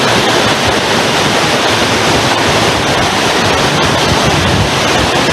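Loud, steady rush of falling water from Cascada Cailor, a large mountain waterfall.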